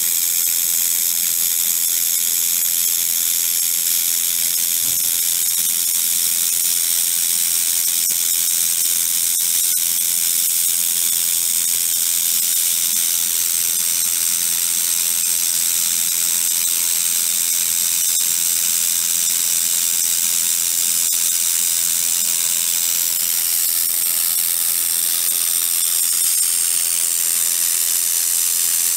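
Handheld 1.5 kW laser welder welding sheet metal: a steady, unbroken high-pitched hiss from the welding head and weld, with a faint steady hum beneath.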